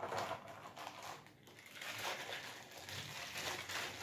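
Clear plastic bag crinkling and rustling as it is handled, a continuous crackle of small clicks.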